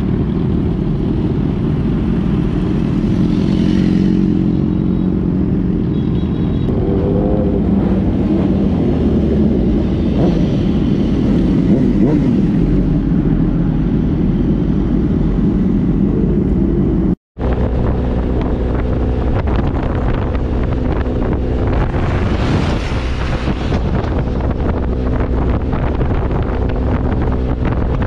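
Large sport motorcycle engine running steadily on the move, with a split-second dropout about seventeen seconds in.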